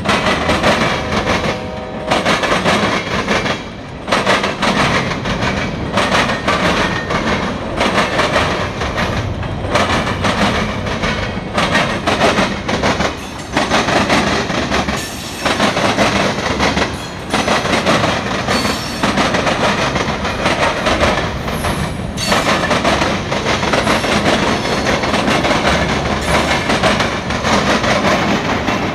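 Loaded freight cars (tank cars and covered hoppers) of a passing CSX freight train rolling by close at hand. Their steel wheels clatter in loud, rapid, repeated knocks over the rail joints and the track crossing, with short lulls between cars.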